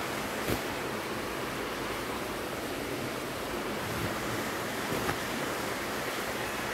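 Steady, even background hiss, with a few soft knocks: one about half a second in, and two more around four and five seconds in.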